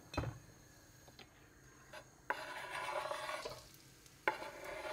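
Chopped onions going from a wooden cutting board into hot oil in a wok and sizzling, in two spells that each start suddenly, the second about four seconds in. A single knock sounds just after the start.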